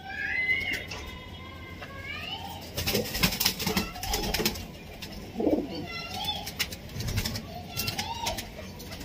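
Domestic pigeons cooing: short coos that rise and fall, repeated several times, with higher thin calls between them. A few sharp clicks come about three to four seconds in and again near the end.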